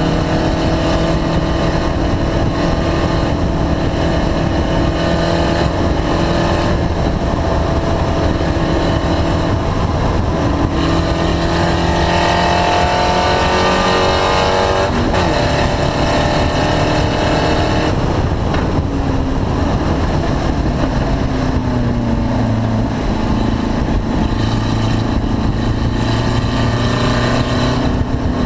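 Race car engine running hard on track, its pitch rising and falling with throttle and gear changes. The owner reports this engine as misfiring.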